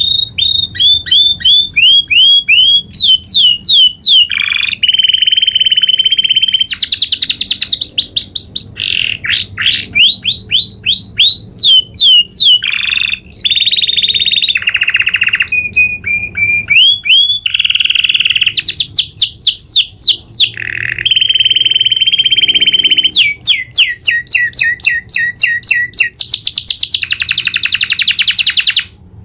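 Domestic canary singing a long, nearly unbroken rolling song. It runs through a chain of repeated notes and very fast trills and rolls, switching to a new phrase every second or two, and breaks off just before the end.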